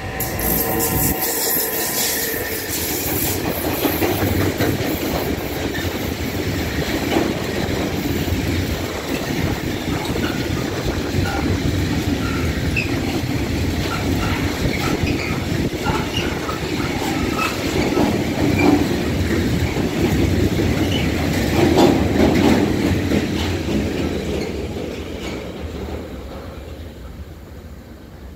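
A freight train of tank wagons hauled by an electric locomotive rolling past, its wheels running loud and steady on the rails with short high squeals here and there. The noise fades away over the last few seconds as the end of the train goes by.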